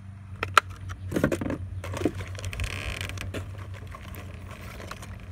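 Handling noises from a fishing lure in a plastic package being picked up: a few sharp clicks, a cluster of knocks, then plastic rustling and scraping, over a low steady hum.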